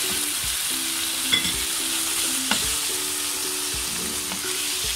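Minced meat and freshly added raw potato wedges sizzling steadily as they are dry-fried (bhuna) in a non-stick pot, browned with only splashes of water rather than simmered. A wooden spoon stirs them through, knocking sharply against the pot twice.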